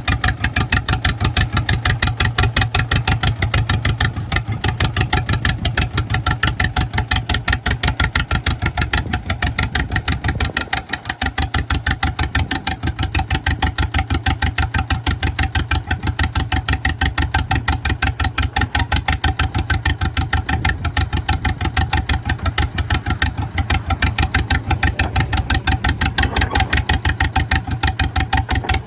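1954 John Deere 40 crawler dozer's two-cylinder engine running with an even, rapid pulsing beat. It dips briefly about eleven seconds in.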